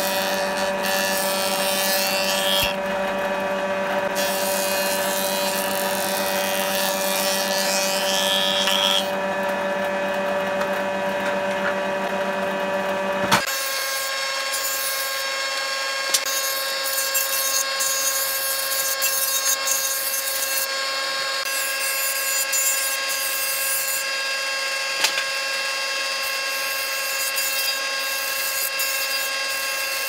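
Combination jointer-planer running with a steady motor and cutterhead whine while old pallet boards are pushed across the jointer. Each pass adds a hiss of wood being cut. The machine's hum changes abruptly about halfway through.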